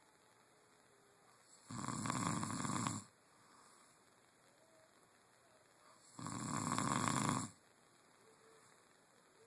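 Someone snoring: two loud snores, each lasting over a second, about four and a half seconds apart, with quiet between them.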